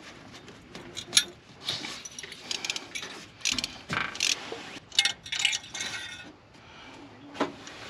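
Ratchet and spark plug socket clicking and clinking against metal in short scattered bursts as a spark plug is backed out of the engine.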